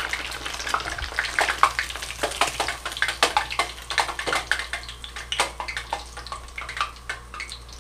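Breaded walleye fillets frying in a saucepan of very hot oil: a dense crackle and sizzle of popping oil. The oil is too hot, browning the thin fillets in about ten seconds.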